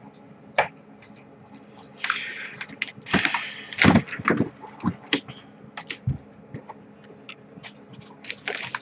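Scattered clicks and knocks with a couple of short rustling noises, the loudest knock about four seconds in.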